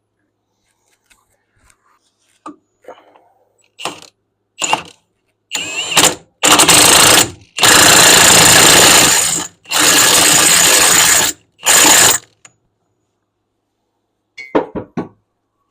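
Impact wrench hammering a wheel hub nut onto a skid steer axle: a few short trigger pulls, then three long runs of a second and a half to two seconds each, and a couple of brief blips near the end.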